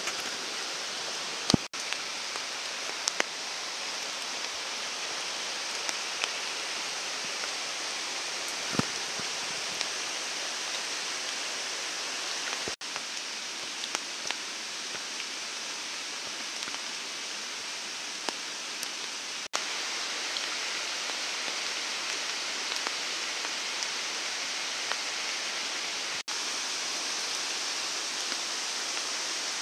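Steady hiss of water still dripping from wet tree branches after rain, with a scattered handful of louder single drops tapping on the tarp.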